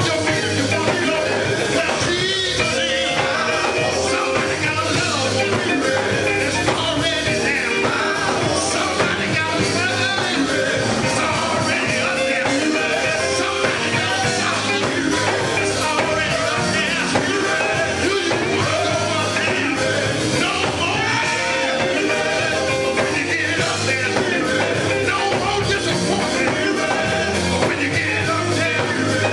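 Live gospel quartet music: a lead singer on a microphone with backing vocals over electric guitar and drums, played through a PA system at a steady level.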